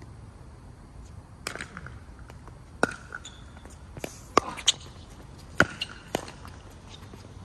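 Pickleball paddles hitting the plastic ball back and forth in a doubles rally: a run of about seven sharp knocks, half a second to a second or so apart, with a few fainter ones between.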